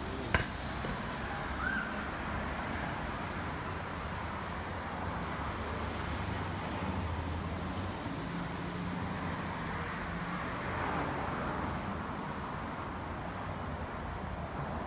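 Steady road traffic noise from a busy street, with a sharp click about half a second in and a brief squeak soon after.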